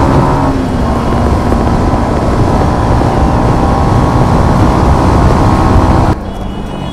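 Single-cylinder motorcycle being ridden, its engine running under heavy wind noise on the microphone, the engine note easing off in the first second. Near the end the sound cuts away abruptly to a quieter stretch with a few faint high tones.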